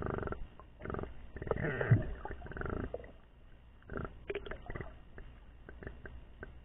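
Muffled underwater noise from a swimmer: a few irregular rasping rushes and gurgles in the first half, one with a falling low growl, then only faint clicks and ticks.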